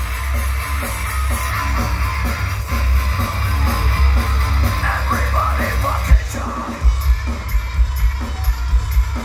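Industrial metal band playing live at full volume: heavily distorted guitars, bass and pounding drums, with yelled vocals in the middle.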